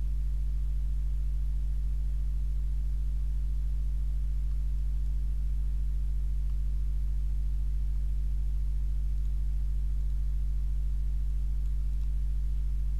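Steady low electrical mains hum, with a stack of fainter overtones above the fundamental and no change in pitch or level.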